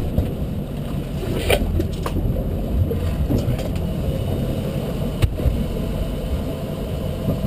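Volvo Penta V8-270-C-A sterndrive's 5.0-litre V8 engine running steadily at idle, with a couple of knocks, the sharpest about five seconds in.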